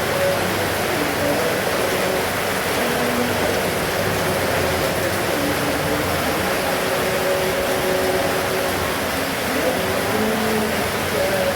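Heavy rain falling steadily, an even, unbroken hiss. Faint short pitched notes sound now and then underneath it.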